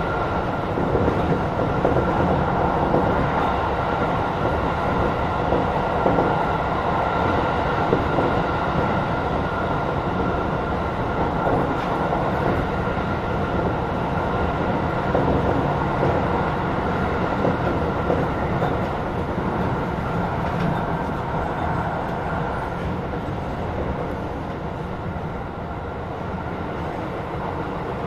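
Tokyo Metro 16000 series electric train running along the track: a steady rumble of wheels on rails, with a thin steady tone above it that fades out about three-quarters of the way through, and the noise easing slightly near the end.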